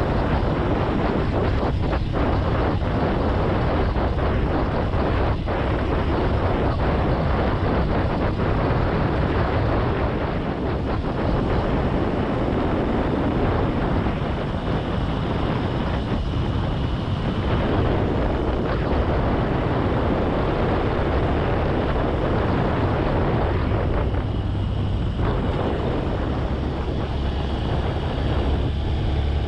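Onboard sound of a Honda CB223S motorcycle under way: its air-cooled single-cylinder engine running steadily, mixed with wind rushing over the microphone.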